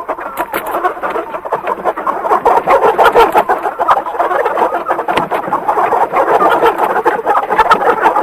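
A crowd of chickens clucking and squawking at once in a poultry house, a dense chattering din that grows louder about two and a half seconds in.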